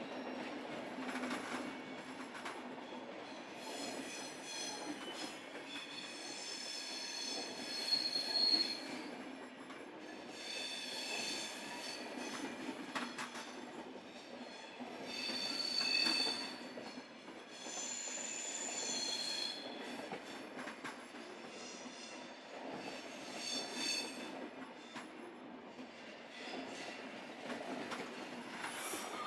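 SBB double-deck passenger train moving along curved station tracks, its wheels squealing against the rails in repeated high-pitched bouts over a steady low running hum.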